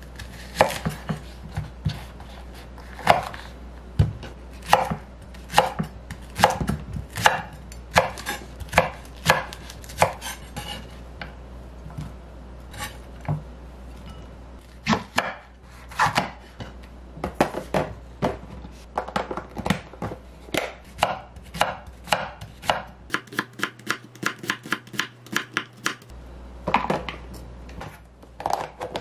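Wüsthof chef's knife slicing a Korean large green onion (daepa) into rounds on a wooden cutting board: a run of crisp knife strikes on the board. The strikes are spaced unevenly at first, then come in a quicker run of several a second a little past the middle.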